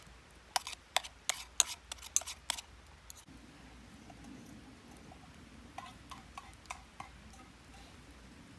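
Wood fire crackling: a quick run of sharp, irregular pops in the first few seconds, then a few fainter pops later.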